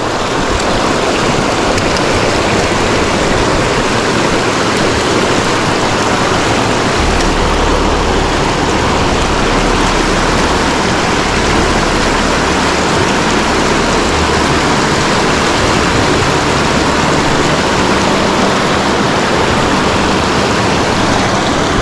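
Small mountain creek rushing over rocky riffles close by: a steady, even rush of water. A low rumble runs under it from about seven to fourteen seconds in.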